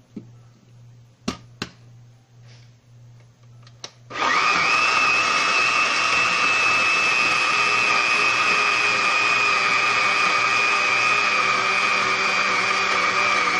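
Countertop blender: two sharp clicks, then about four seconds in the motor starts abruptly and runs steadily with a high whine, puréeing cooked vegetables and stock into gravy.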